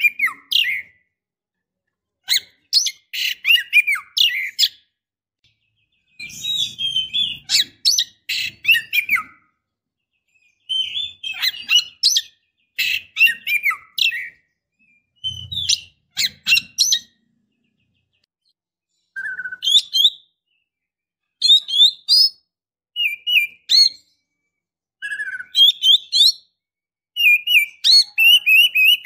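Female Oriental magpie-robin calling in short bursts of rapid chattering chirps and brief whistles, about ten phrases separated by pauses of a second or two. These are the calls of a female in breeding condition, used as a lure to make a male answer.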